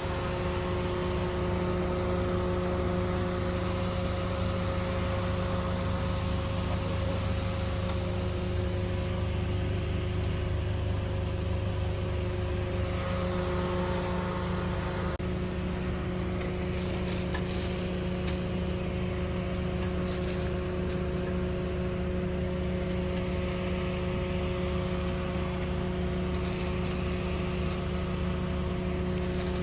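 Steady mechanical hum: a constant low drone with a few fixed tones that do not change in pitch, and faint light ticks in the second half.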